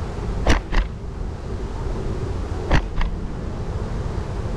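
Steady wind and road rumble on a GoPro riding along on a bicycle, with two pairs of sharp knocks, each pair about a quarter second apart, about half a second in and again near three seconds in.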